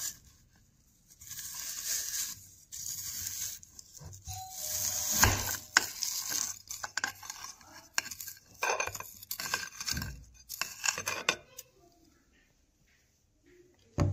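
Knife cutting through a block of set kulfi on a plate: a string of scrapes and clicks as the blade works through the ice cream and knocks against the plate, stopping about eleven seconds in, then one sharp click near the end.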